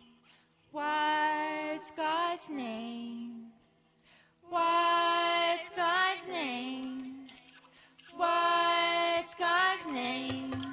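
A woman singing slow, drawn-out phrases, each ending in a downward slide in pitch, with short pauses between them. A low bass tone comes in near the end.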